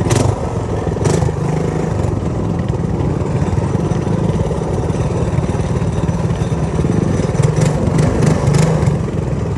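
Megamoto 212 minibike's 212 cc single-cylinder engine running steadily at low speed over rough ground, with a few sharp clattering knocks from the bike jolting over ruts, several of them close together near the end.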